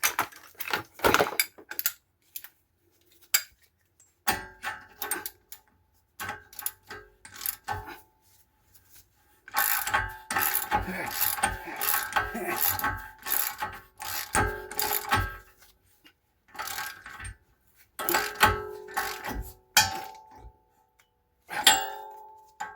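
Metal tools clinking and clattering in a rapid series of short knocks, as tools are picked up and set down while being searched through.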